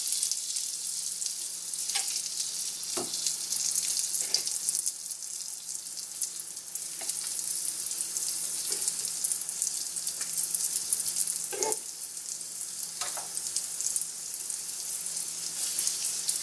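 Floured chicken breasts sizzling as they fry in hot butter and olive oil in a frying pan: a steady high hiss. A few short light knocks and clicks break through it as pieces are laid in and moved.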